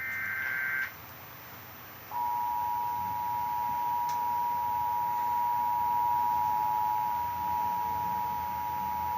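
Emergency Alert System broadcast: the tail of the SAME digital header's data screech, then, about two seconds in, the steady two-tone EAS attention signal (853 and 960 Hz) that announces the tornado warning.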